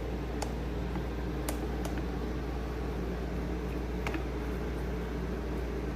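Steady low hum of room background, with a few faint, scattered clicks of small parts being handled.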